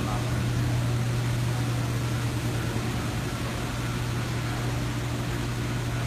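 Steady drone of brewery plant machinery and ventilation: a constant low hum under an even hiss.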